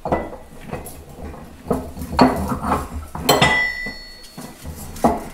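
Heavy steel parts clinking and knocking as a Farmall MD differential with its ring gear is worked into place in the rear housing. One knock a little over three seconds in leaves a short metallic ring.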